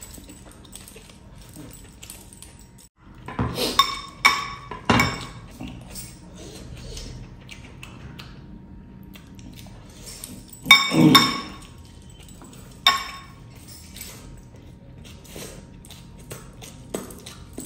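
Sharp ringing clinks of metal rings and bracelets knocking against a glass bowl as a hand scoops curry, a cluster about three to five seconds in, another about eleven seconds in and a single one near thirteen seconds. Between them, quieter wet sounds of hand-eating and chewing.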